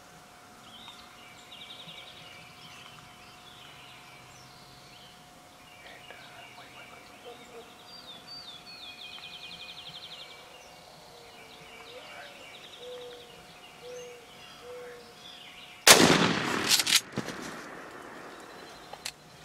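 Songbirds chirping and trilling, then about sixteen seconds in a single loud shotgun blast at a gobbler, trailing off over about a second.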